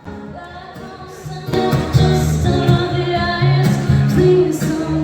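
Live music: a singer with guitar accompaniment, getting much louder about a second and a half in.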